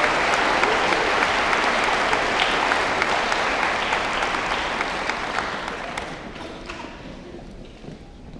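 Audience applauding, which dies away over the last few seconds to a few scattered claps.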